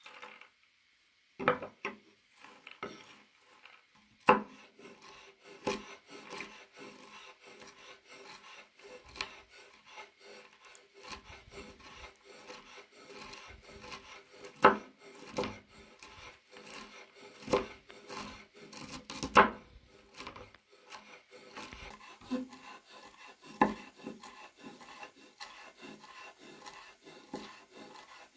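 Walnuts being crushed and then chopped with a knife on a wooden cutting board: a dense run of small crunching, scraping strokes, with a louder knock of the blade on the wood every few seconds.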